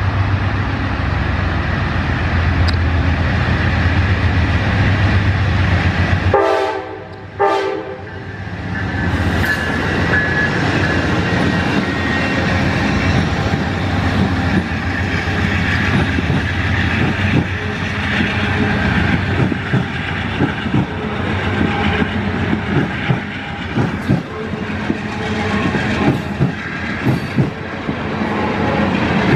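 Amtrak P40DC diesel locomotives of the Auto Train passing close by with a heavy engine rumble, and two short pitched horn notes about six seconds in. The train's passenger cars then roll past, their wheels clicking steadily over the rail joints.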